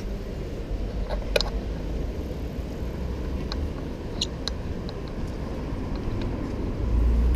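City street traffic: a steady low rumble of cars, with a few short clicks and knocks and a louder low rumble near the end.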